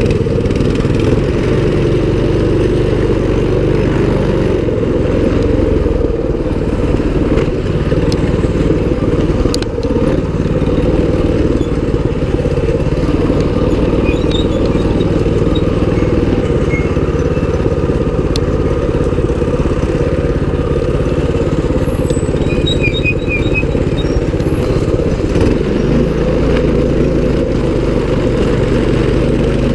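Mini bike's small single-cylinder engine running steadily while riding, its pitch shifting a little now and then as the throttle changes.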